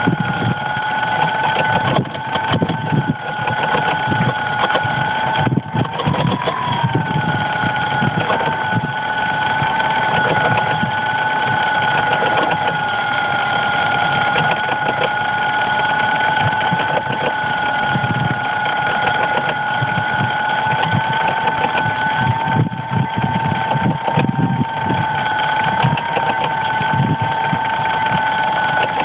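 DJI Phantom quadcopter's electric motors whining steadily at idle after a crash, a constant two-note hum with a brief wobble in pitch about six seconds in, over an uneven low rumble.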